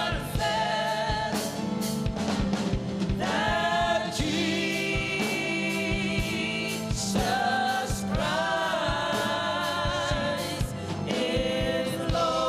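Congregational gospel worship singing with band accompaniment and a steady drum beat, voices holding long notes.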